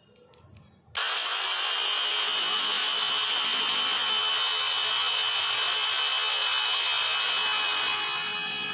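Electric drill running at speed, spinning a pencil inside a pencil sharpener: a steady high whine over a loud grinding hiss. It starts abruptly about a second in and eases slightly near the end.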